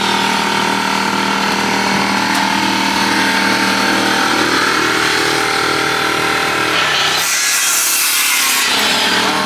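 Power saw cutting lumber during the coop build, over a steady motor hum; the sound changes character about seven seconds in.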